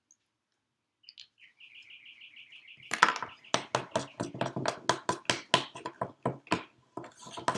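A large spoon stirring wet flour-and-salt play-dough in a bowl, with quick, sharp knocks and squelches at roughly three a second. These start about three seconds in, just after a short, rapid chirping trill from a bird.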